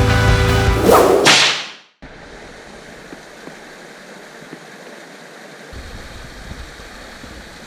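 Rock music ending in a whoosh sweep, then a brief silence. After that comes a steady outdoor hiss, with a low wind rumble on the microphone joining near the end.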